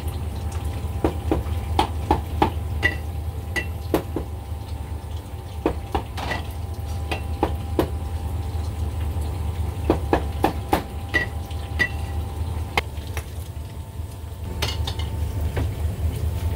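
Scattered knocks of a cleaver on a wooden chopping block and clinks of metal bowls and utensils, over a steady low hum.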